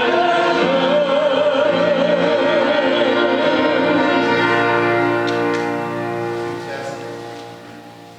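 Voices singing with accompaniment, holding a long final chord with vibrato on the top voice, which fades out over the last few seconds.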